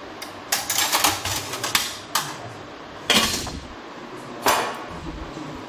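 Metal surgical instruments and stainless-steel containers clinking and clattering in a run of sharp knocks. A cluster comes in the first two seconds, the loudest clatter about three seconds in, and another about four and a half seconds in.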